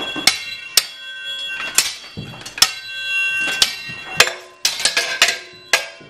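Metal swords clashing in a staged medieval sword fight: a dozen or so sharp blade strikes, each ringing on briefly, coming faster after about four seconds.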